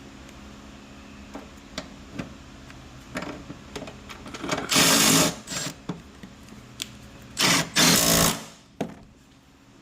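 Truck starter chattering in two loud bursts as the key is turned, with clicks between them: the rapid clatter of a starter solenoid that is not getting enough current, the sign of a bad ground.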